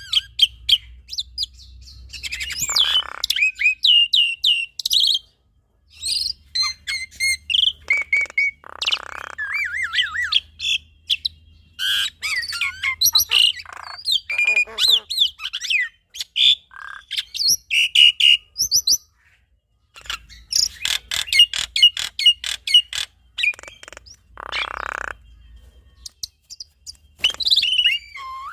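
Black-winged myna and Javan myna singing together: rapid, varied runs of chirps, whistles and trills broken by harsh rasping calls, with two short pauses.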